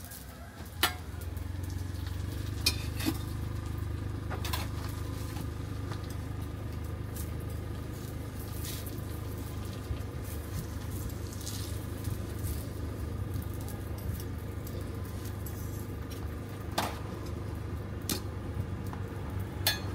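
A thin roti pancake frying in oil in a wide flat pan, sizzling steadily, with a few sharp metal clinks as the turner strikes the pan. A steady low hum runs underneath.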